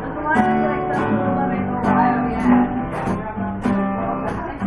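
Acoustic guitar strummed in a steady rhythm during an instrumental break in an upbeat song, with no singing.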